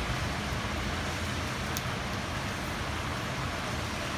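Heavy rain falling steadily, a continuous even hiss with a low rumble underneath.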